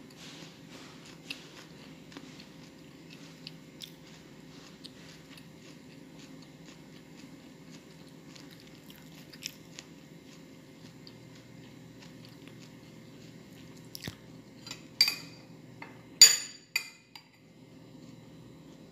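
Close-up chewing and mouth clicks of someone eating sweet corn kernels. About two-thirds of the way through, a metal spoon clinks against a glass bowl several times; two ringing clinks about a second apart are the loudest.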